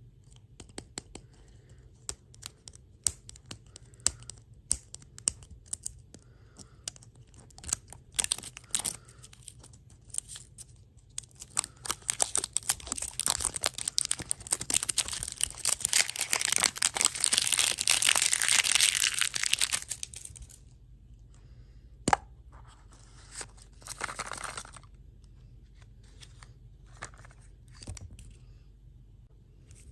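Candy or dessert packaging being crinkled and torn open, with scattered sharp crackles and one long stretch of continuous crinkling in the middle.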